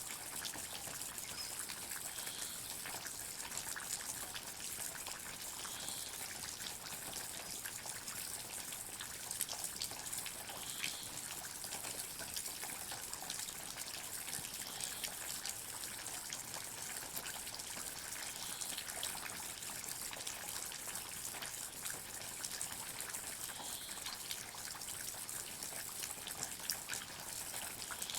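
Water dripping and trickling in a forest: a steady hiss of many small, irregular drops falling, with no single loud event.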